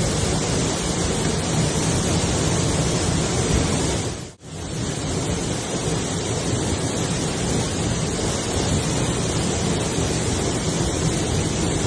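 Steady roar of falling water from a waterfall, broken by a brief drop-out about four seconds in.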